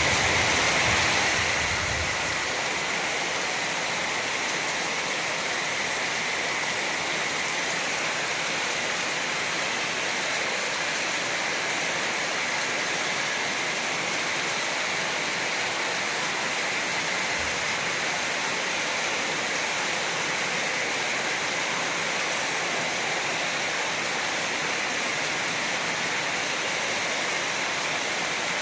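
Steady rain falling, a dense even hiss that is a little louder for the first couple of seconds and then holds constant.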